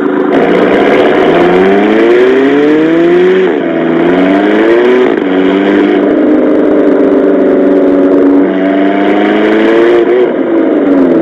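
Supercar engine accelerating hard through the gears: its pitch climbs, drops sharply at an upshift about three and a half seconds in, again a second and a half later, and once more near the end, then climbs again.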